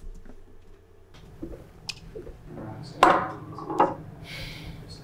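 Playback of a film scene's location dialogue track. A steady low room hum comes in about a second in, with knocks and clinks of dishes and glasses on a table, loudest a few seconds in. It is processed by a noise-reduction filter at 40%, which gives it a mechanical, industrial edge.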